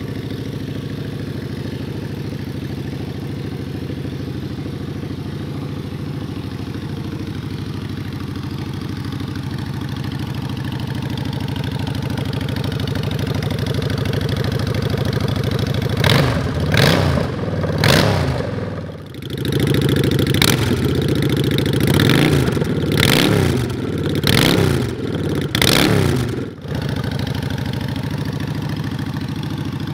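2022 Honda Shadow Phantom 750's V-twin engine running through an aftermarket Vance & Hines exhaust. It idles steadily, then about halfway through it is blipped in a string of about eight quick revs before dropping back to a steady idle.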